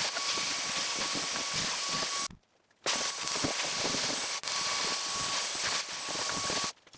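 Dyson cordless handheld vacuum cleaner running, sucking up sand and grit from a car's bare metal floor pan: a steady high whine over a rushing hiss. It cuts off for about half a second around two and a half seconds in, and again just before the end.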